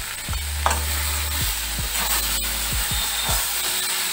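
A metal spatula stirring and scraping a thick banana-flower, prawn and potato mixture around a metal kadai, with a steady sizzle of frying underneath and a few sharp scrapes against the pan.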